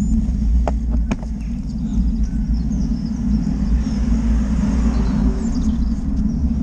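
Wind buffeting a moving action camera's microphone, a steady low rumble. A few sharp clicks come about a second in.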